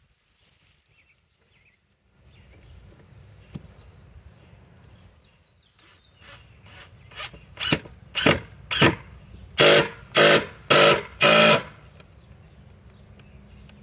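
DeWalt cordless power driver driving a screw into a plywood board in short trigger bursts, about two a second, the bursts growing louder and longer as the screw goes in.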